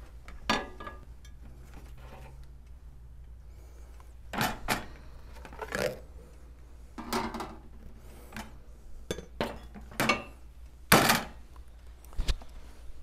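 Plates clattering and knocking as they are taken out and set down, stacked onto a metal serving platter on a wooden table: a dozen or so separate knocks, the loudest about eleven seconds in.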